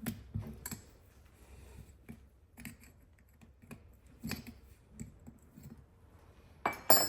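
Small metal carburetor parts and hand tools clicking and tapping as a Zenith 63 updraft carburetor is taken apart, in scattered single clicks, with a louder clatter near the end.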